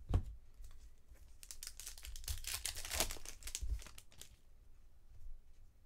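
Baseball trading cards being handled: a light knock at the start, then a few seconds of crinkling and rustling, which stops about four seconds in.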